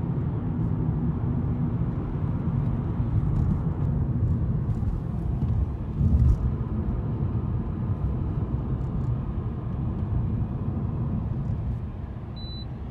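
Road noise heard inside a moving car: a steady low rumble of tyres and engine, with a brief louder bump about six seconds in.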